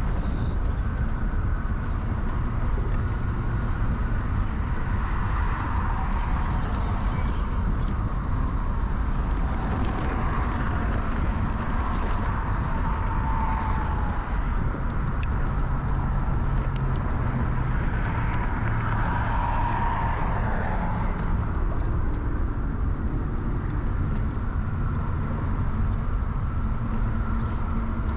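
Steady ride noise from an early-1970s Peugeot UJ-10 ten-speed bicycle under way: a constant low rumble of wind and tyres picked up by a bike-mounted action camera, with a few faint light ticks.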